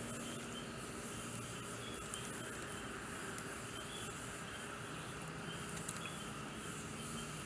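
Small longan-wood fire in a lightweight fire pit giving a few faint crackles, over a steady outdoor background with a faint chirp repeating about once a second.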